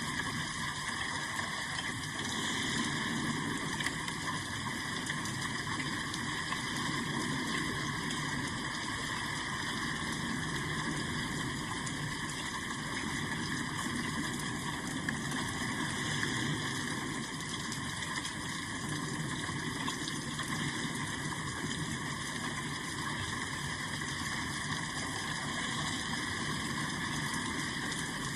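Steady rain, an even hiss that holds without a break.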